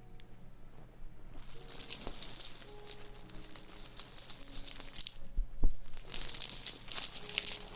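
Close-miked crackly rustling, an ASMR trigger, in two spells of a few seconds each with a soft thump between them.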